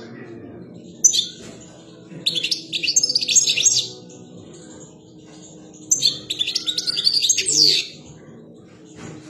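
European goldfinch singing: three bursts of rapid, high twittering song, a short one about a second in, then two longer phrases of about two seconds each.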